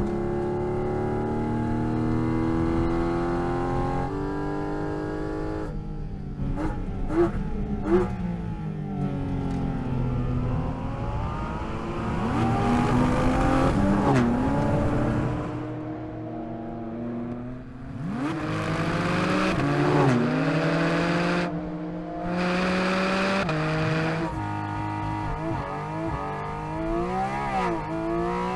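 Porsche 718 Cayman GT4 RS's naturally aspirated flat-six revving hard on track. Its pitch climbs and drops back again and again as it accelerates and changes gear, with a few sharp cracks about seven and eight seconds in.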